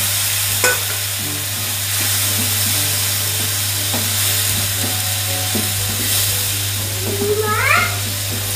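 Chopped onions and tomatoes sizzling in a frying pan as they are stirred with a wooden spatula, with a knock of the spatula against the pan about half a second in. Near the end, a short rising cry.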